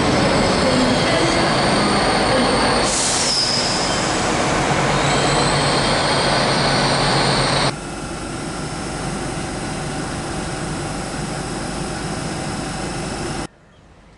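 Northern Class 195 diesel multiple unit running into a covered station platform, loud and echoing, with a high squeal about three seconds in that slides down in pitch. After an abrupt cut it drops to a quieter steady rumble, and it turns much quieter near the end.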